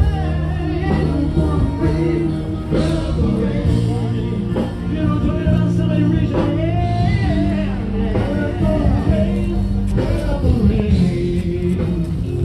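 Rock music with singing over a steady bass line.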